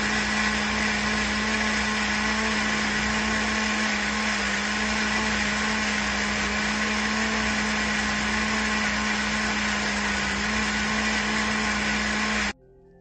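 Electric countertop blender running at steady speed, its motor humming at a constant pitch while it purées a red liquid in the jar. The sound stops abruptly near the end.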